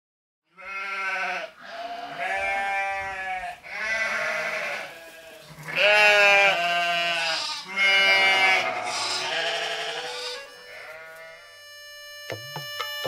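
Sheep bleating over and over: about eight wavering calls of a second or so each, one after another. Music with steady held notes comes in near the end.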